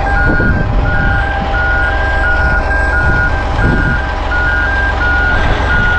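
Two-tone warning beeper on heavy equipment, alternating steadily between two close pitches about twice a second, over the low rumble of a running diesel engine.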